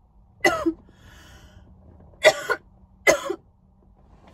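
A woman coughing from blunt smoke: three loud coughs, the last two close together.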